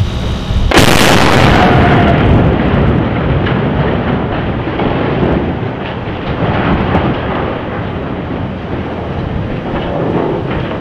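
Precision demolition charges detonating to cut a steel bridge truss section lying on a container ship: one sharp, very loud blast about a second in, followed by a long rolling rumble that slowly fades.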